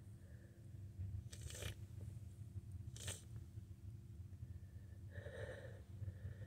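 Two wet sniffles through a cold-congested nose, about a second and a half apart, followed near the end by a brief soft vocal sound.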